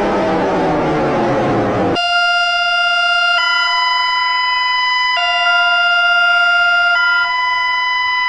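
Emergency alert alarm: a harsh siren-like tone falls in pitch for about two seconds, then cuts abruptly to loud, steady electronic chords. The chords jump to a new pitch every second or two.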